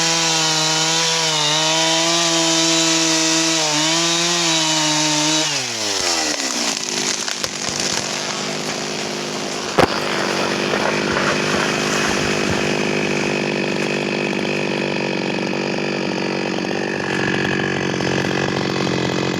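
Stihl chainsaw held at high revs while cutting; about five seconds in the throttle is released and the engine note falls away quickly. Crackling and cracking of wood follow, with one sharp crack near ten seconds in, as the tree goes over, and the saw keeps running at a lower speed.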